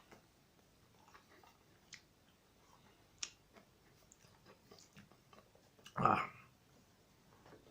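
A person quietly chewing a mouthful of chicken fillet burger, with scattered small wet mouth clicks and smacks. There is one louder, short sound from the mouth about six seconds in.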